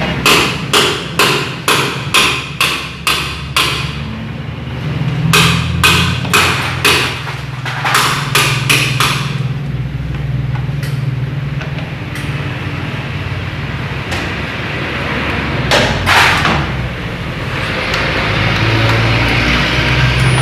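Repeated sharp knocks, about two or three a second, in two runs of several seconds each, with two more knocks later, over a low steady hum.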